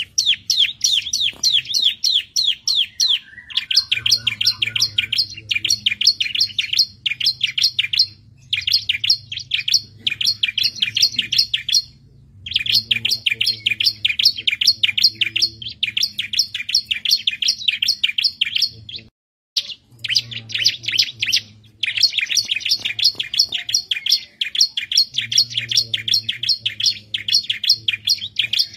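Bar-winged prinia (ciblek) singing: long trills of rapid, repeated down-slurred notes lasting several seconds each, broken by short pauses.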